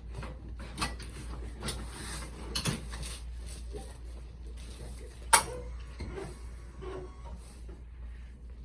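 Patient shifting onto his side on a chiropractic treatment table, with rustling and a few light knocks, then one sharp crack about five seconds in, over a steady low hum.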